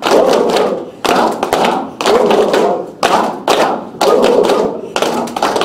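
A group clapping in rhythm, in the laughter yoga 'one two, one two three' pattern, with voices chanting 'ho ho ha ha ha' along with the claps.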